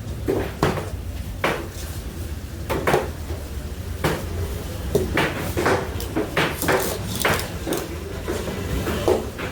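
A knife chopping and knocking on a cutting board as a skipjack tuna is cut up: a string of uneven sharp chops, with a steady low hum underneath.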